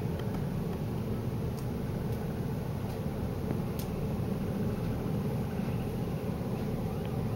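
A steady, low, distant rumble with no clear tone or rhythm; a siren begins to wail faintly near the end.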